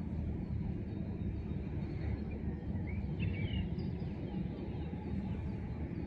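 Steady low outdoor rumble, with a few faint bird chirps about two to three seconds in.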